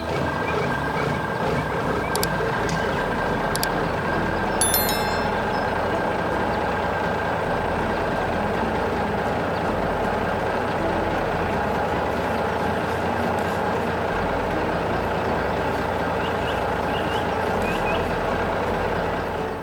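Heavy truck engine running steadily, with a brief high ring about five seconds in.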